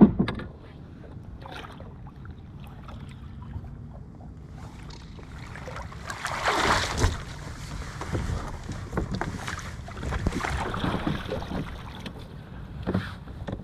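Water splashing and sloshing around a kayak, with scattered knocks and a louder splash about six and a half seconds in.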